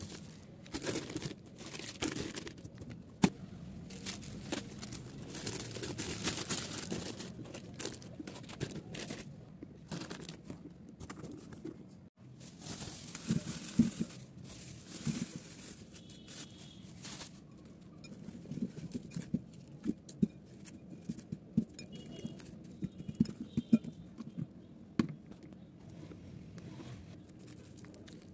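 Plastic bags and packaging rustling and crinkling as groceries are unpacked, with scattered light knocks and clicks of items being handled and set down.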